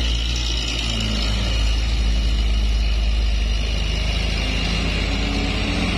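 Heavily loaded diesel cargo truck labouring up a hill climb: a deep, steady engine rumble.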